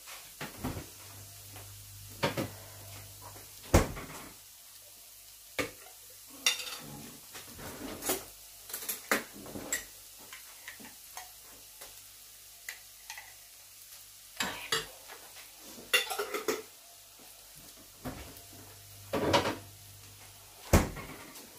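Kitchen clatter of a jar and a metal spoon: scattered knocks and clinks as spoonfuls of homemade fried tomato are scooped and tapped into a clay cazuela. A low steady hum runs underneath and stops near the end.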